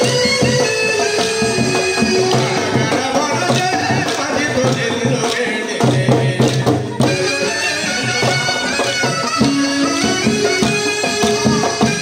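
Live South Indian folk music for a kolatam stick dance. A sustained, reedy wind-like melody runs over steady, rhythmic drumming.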